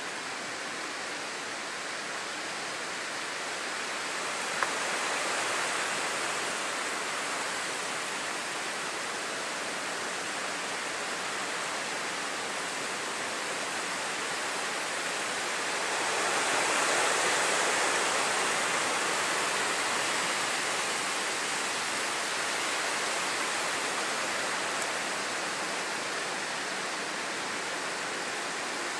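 Steady rushing hiss of Hurricane Sandy's rain and wind, swelling louder twice, with a single sharp click about five seconds in.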